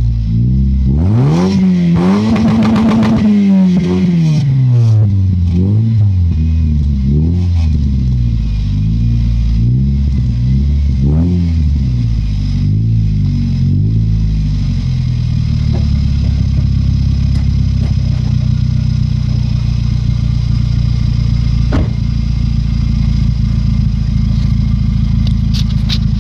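Warm Toyota Yaris engine and exhaust, heard from a microphone on the rear subframe, blipped up and down repeatedly with the highest rev about a second to four seconds in. About fourteen seconds in it settles to a steady idle.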